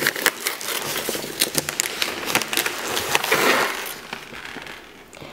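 Wrapping paper and tissue paper crinkling and tearing as they are pulled off a cardboard box: a dense crackle that fades out about four seconds in.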